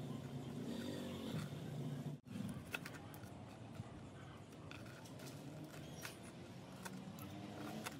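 A knife slicing crisp breaded fried pork against a plastic cutting board, giving a few faint scattered clicks, over a steady low hum.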